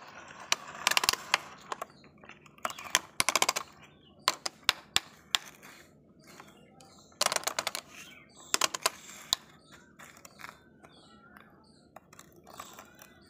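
Plastic toy excavator worked by hand, giving bursts of rapid sharp clicking and rattling as the arm and bucket move and scoop sand.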